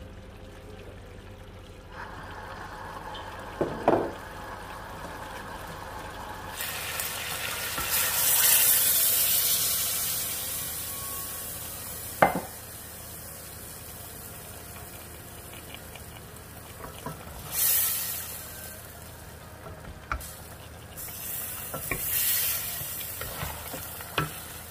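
Pork and chicken frying in a stainless steel pot while being stirred. A loud sizzling hiss starts suddenly about seven seconds in and fades over a few seconds, two shorter hisses come later, and a few sharp clinks of a utensil on the pot stand out.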